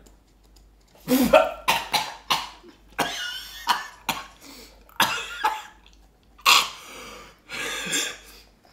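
A man coughing in a string of short, harsh bursts, mixed with laughter.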